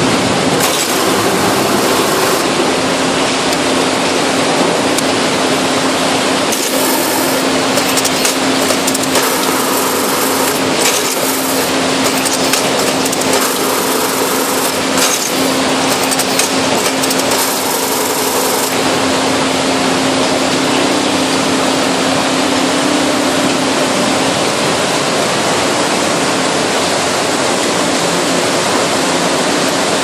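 International Baler TR12-T100 two-ram cardboard baler and its high-pressure hydraulics running loud and steady, with a low hum that stops about four fifths of the way in. Dense crackling and rattling bursts come and go through the middle.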